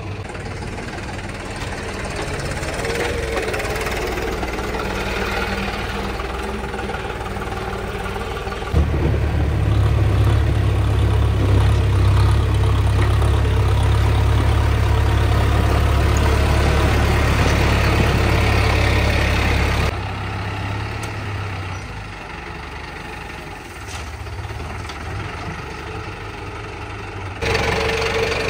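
Tractor diesel engine running steadily. About nine seconds in it turns abruptly much louder and deeper, and about eleven seconds later it drops back. The sound changes suddenly again near the end.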